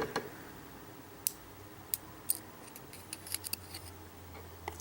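Faint, scattered small metallic clicks of tweezers handling lock pins and springs, a few taps spread out with a short cluster about three seconds in.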